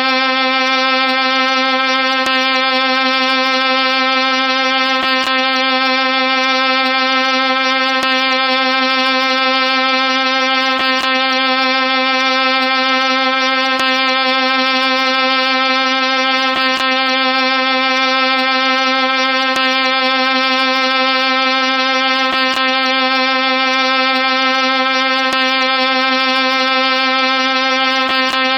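A single held, buzzy tone at one unchanging pitch, rich in overtones, with a faint click about every three seconds.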